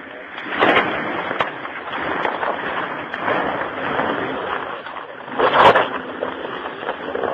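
A 4x4 crawling up a rocky dirt track: a rough, steady rumble of engine and tyres crunching over stones, with two loud, sharp bumps about five seconds apart.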